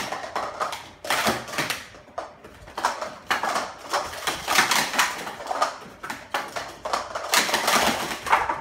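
Sport-stacking cups being rapidly upstacked and downstacked on stack mats by two stackers at once: a dense, fast clatter of plastic clicks and taps.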